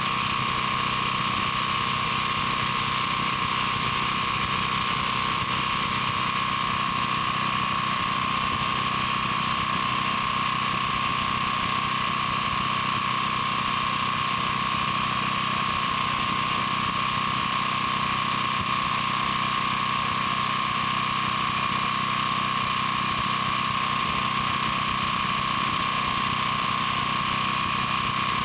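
7 kW portable generator's air-cooled engine running steadily at constant speed, with a steady high whine over the engine hum.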